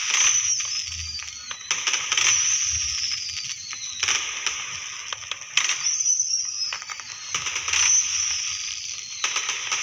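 Fireworks crackling: a string of bursts, each a dense run of sharp crackles that starts suddenly and fades over a second or so, over a steady high hiss.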